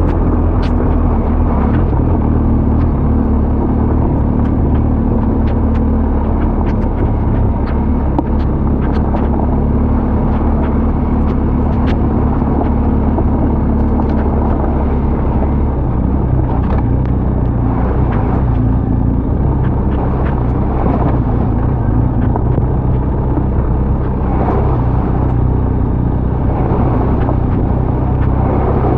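BMW R 1250 GS boxer-twin motorcycle engine running at a steady pace while riding, with wind noise and scattered sharp clicks throughout.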